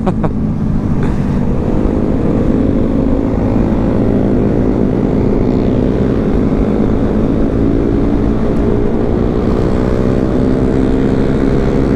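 Suzuki GSX-S150's single-cylinder engine running at steady revs while riding at speed, with wind rumble on the microphone.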